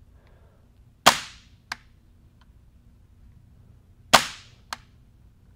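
Kythera HPA airsoft engine in an MCX firing twice, about three seconds apart: each shot a sharp pop of released air that dies away quickly, followed about half a second later by a light click as the trigger resets.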